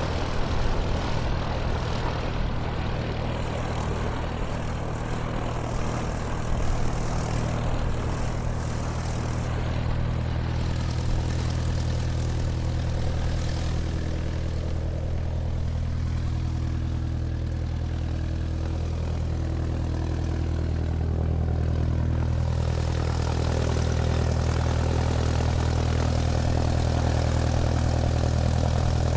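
Airplane taxiing, its engines running in a steady low drone, growing a little louder about two-thirds of the way through.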